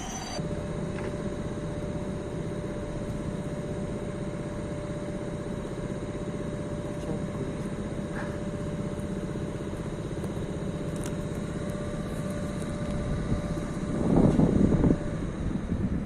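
Train at a railway station: a steady rumbling noise with a constant mid-pitched hum over it, then a louder surge of noise near the end.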